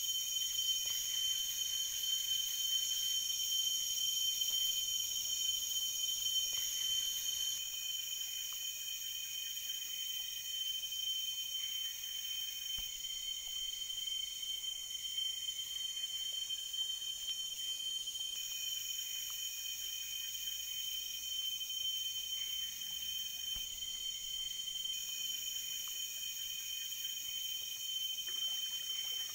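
Chorus of rainforest insects after rain: several overlapping steady high-pitched drones at different pitches.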